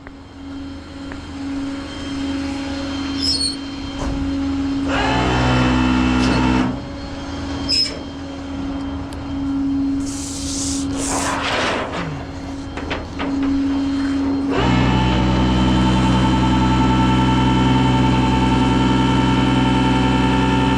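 Tow truck's engine running with its winch hydraulics at work: a steady hum, a brief louder surge about five seconds in, then from about fifteen seconds in a louder steady drone at higher revs.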